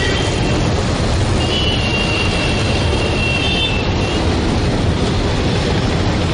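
Steady, loud vehicle noise with no breaks, and a faint high squeal between about one and a half and four seconds in.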